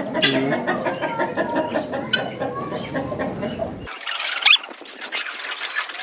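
Chickens clucking, then after an abrupt break about four seconds in, a few sharp, high-pitched bird squawks.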